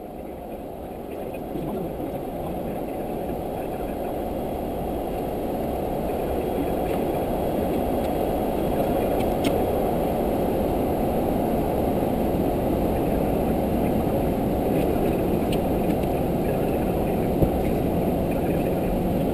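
Steady rushing cockpit noise of an Airbus A340-300 in flight, the airflow and engine hum heard inside the flight deck. It fades up over the first several seconds, then holds steady, with a faint click near the end.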